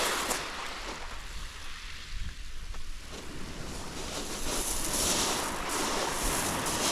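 Sea waves washing on a shingle beach, with wind buffeting the microphone; the wash swells up about four seconds in.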